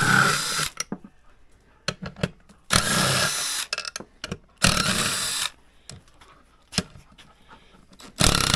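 Cordless drill with a half-inch socket spinning bolts out of a vintage Polaris snowmobile chain case cover. It runs in four short bursts of about a second each, with light clicks between them.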